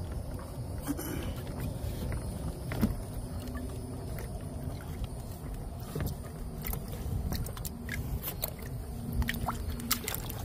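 Scattered clicks and knocks of hands working the GoBoat's electric-motor mount, loosening it and pulling it up, over a low steady rumble of handling noise.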